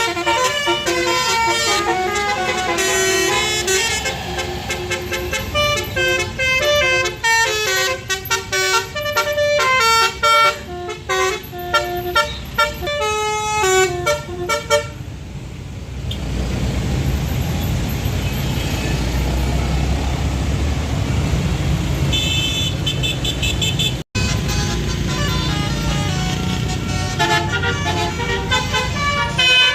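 Tour bus 'telolet' multi-tone horn playing a quick tune of changing notes for about fifteen seconds. Then a low engine and road rumble, with a short run of high toots. Near the end, after a momentary break, the horn tune starts again.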